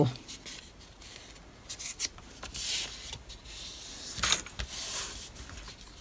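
Paper strip being folded and its crease scored with the fingers: a soft dry rubbing of fingertips on paper in stretches, with one sharp tick about four seconds in.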